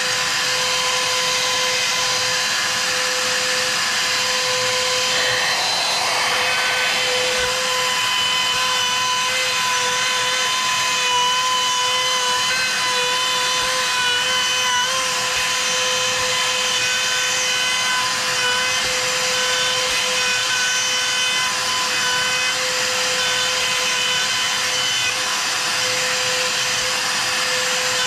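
Makita compact trim router running continuously while routing a bowtie (Dutchman) inlay recess in wood along a template: a steady high whine whose pitch dips and wavers slightly in the middle as the bit takes load in the cut.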